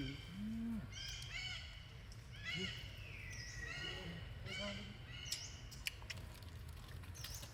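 A run of short, high-pitched animal calls, one after another, with one longer gliding call about three seconds in. A low steady hum runs underneath, and there are two sharp clicks about five and a half and six seconds in.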